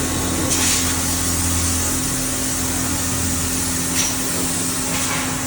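Calpe M 1300 MH wood copy lathe running, a steady machine hum under a constant hiss, with two brief sharper hisses about half a second and four seconds in.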